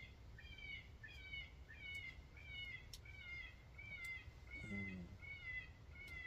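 A high animal-like call repeated very steadily, about one and a half notes a second, each note a short mew that bends downward, over a low rumble of wind. A brief low sound about three-quarters of the way through.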